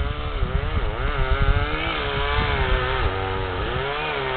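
Two-stroke chainsaw cutting into a large dead tree, its engine pitch dipping and recovering several times as the chain bogs in the cut and revs back up. Low rumbling runs under it through the first three seconds.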